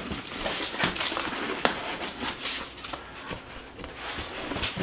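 Cardboard box flaps being folded open and a packing sheet lifted out: irregular rustling and scraping of cardboard with many short clicks and taps.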